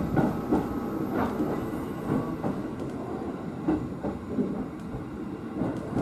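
Interior running noise of a JR East E233 series electric train: a steady rumble with wheels knocking over rail joints, the knocks strongest near the start. The noise eases gradually as the train slows on its approach to the terminus.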